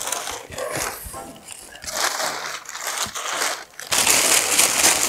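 Crumpled white packing paper rustling and crackling as it is pulled out of a cardboard box during unpacking. It comes in short bursts at first, then turns louder and continuous about four seconds in.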